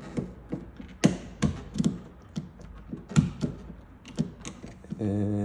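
Irregular sharp clicks and taps, about a dozen, as a Porsche 911 door handle and its plastic clips are worked with a pick tool. Near the end a drawn-out voiced sound.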